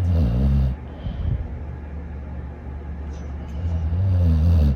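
Dog snoring: a loud, low snore right at the start and a second one building up near the end, with a steady low drone between them.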